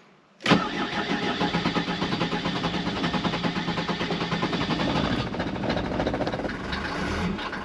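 Mercedes W201 190D diesel engine starting up about half a second in and then running, easing slightly near the end. The engine is running again on its refitted original fuel filter, after a wrong replacement filter had left it without fuel.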